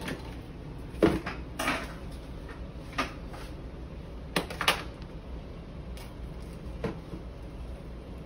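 Kitchen handling sounds: about six separate knocks and clatters of containers and food packaging, the loudest about a second in, over a low steady hum.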